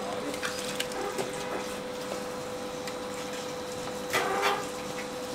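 A steady machine hum with one constant tone runs throughout, with a few light clinks. About four seconds in comes a short splash as hot water is tipped from a large ceramic noodle bowl back into the stockpot.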